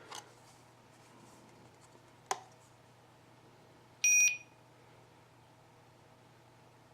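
A GSM alarm control unit gives a single short, high electronic beep about four seconds in. Before it come a couple of light clicks as its SIM card is pushed back into place.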